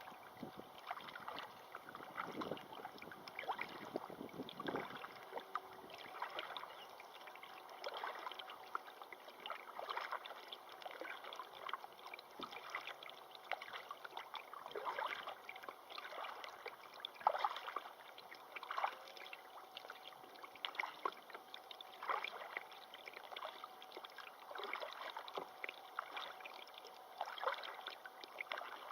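River water splashing and gurgling in small irregular bursts, several a second, over a steady watery hiss.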